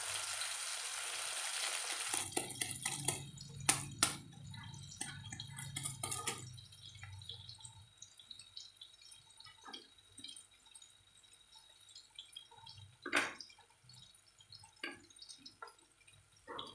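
Onion and tomato frying in a kadhai, sizzling steadily for about two seconds, then the sizzle cuts off. After it come scattered light clicks and taps of handling a spice packet and kitchen utensils, with one louder knock past the middle.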